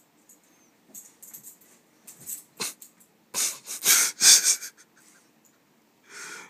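Small Pekingese–Maltese mix dog breathing noisily through its nose close up: a string of short breathy bursts, loudest in the middle, with one more near the end.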